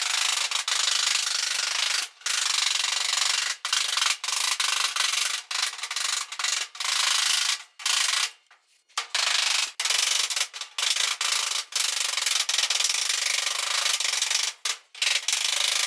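Power shears cutting the excess sheet metal off the edge of a hand-formed roof panel along a scribed line, running in short stretches that stop and start every second or two, with a longer pause about eight seconds in.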